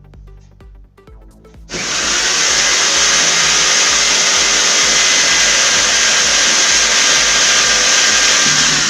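Soft background music, then about two seconds in a handheld power tool starts abruptly and runs loud and steady, easing off near the end.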